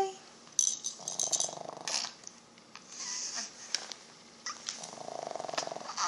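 Hanging toys on a baby bouncer's toy bar rattling and clicking several times as a baby bats at them, with a pet snoring in the background in a few stretches, the longest near the end.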